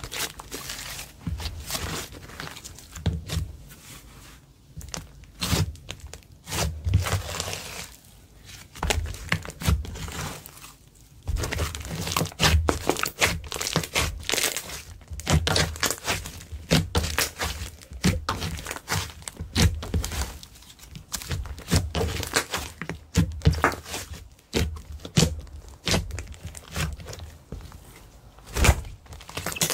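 Hands kneading and squishing slime, with a dense run of irregular sticky clicks, crackles and pops and soft low thuds as the slime is pressed, stretched and folded.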